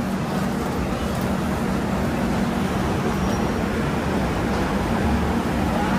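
Railway station ambience: a steady low machine hum and rumble, with no single event standing out.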